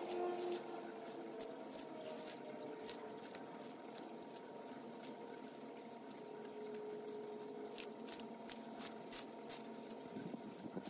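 Sulcata tortoise biting and tearing romaine lettuce: quick, irregular crisp clicks and crunches over a steady faint hum.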